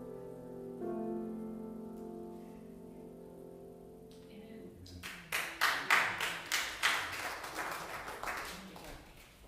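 Keyboard chords ringing out and fading away as a piece ends. About five seconds in, a few seconds of applause from a small group follow, then die away.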